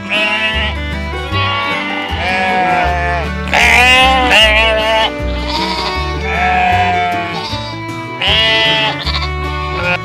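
Lambs bleating several times, the loudest a long wavering bleat about four seconds in, over background music with a steady bass line.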